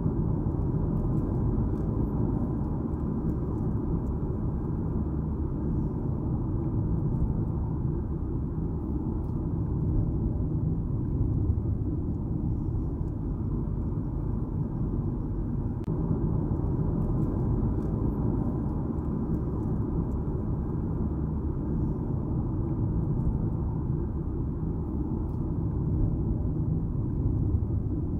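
Steady rumble of a car driving along a road: continuous tyre and engine noise with no changes in speed.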